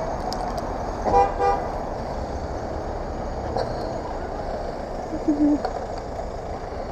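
Vehicle horn tooting twice in quick succession about a second in, over a steady rumble of engine and street traffic. A brief, lower-pitched tone sounds about five seconds in.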